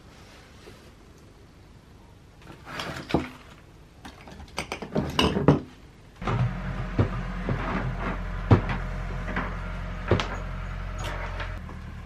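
Books and household objects being handled and set down on wooden surfaces: scattered knocks and thuds, with a quick clatter of several knocks about five seconds in. From about six seconds a steady low hum sits underneath, with a few sharp knocks over it.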